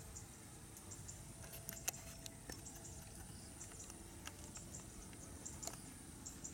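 Faint outdoor field ambience: a steady high insect drone with many small scattered high ticks and chirps, and one sharp click about two seconds in.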